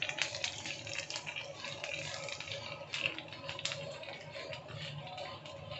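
Ghee sizzling in a hot pan under a slice of bread, a steady crackle with many small irregular ticks.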